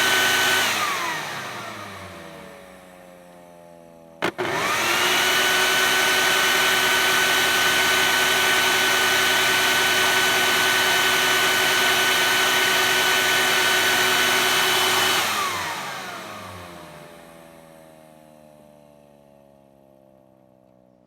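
Air raid siren test: the siren's steady wail falls in pitch and winds down. About four seconds in there is a sharp click, then the siren quickly rises back to a steady high tone held for about ten seconds. Near the end it winds down again in a long falling glide that fades out.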